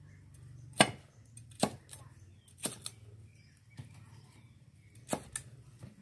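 Cleaver chopping garlic and shallots on a thick round wooden chopping block: single sharp chops about a second apart, with a quick double chop near the end.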